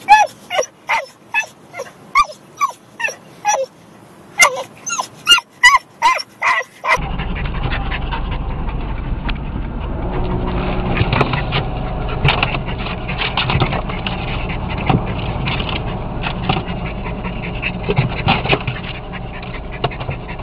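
A small dog yelping sharply in quick succession, each yelp falling in pitch, about two a second, with a short break partway through. About seven seconds in, the sound changes to the steady low rumble of an automatic car wash, over which a Jack Russell terrier whines and gives occasional barks.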